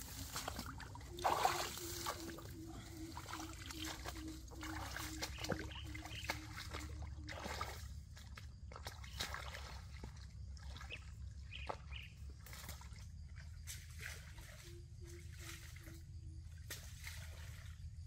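Rainforest ambience with trickling water and a low animal call of evenly repeated notes, about two or three a second, that goes on for about six seconds and comes back briefly near the end. A short louder noise sounds about a second in.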